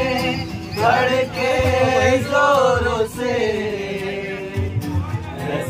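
A man singing a Hindi song in long, held, wavering notes to a strummed acoustic guitar.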